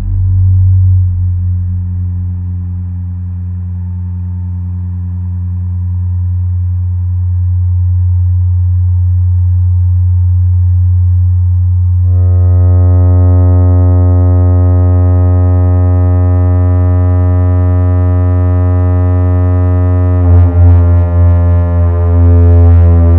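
Electronic drone from an active matrix mixer live rig: a steady, deep, buzzy tone that turns brighter about halfway through as higher overtones come in, with a fast throbbing pulse setting in near the end.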